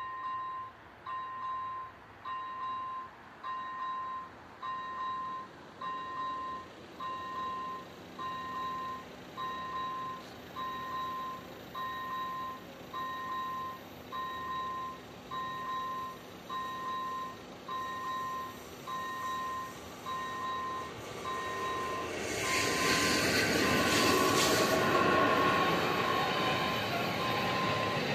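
Level crossing's electronic warning bell ringing in steady pulses about once a second. About 22 seconds in, a freight train of car-carrier wagons arrives and the rumble and clatter of its wheels on the rails grows loud, partly covering the bell.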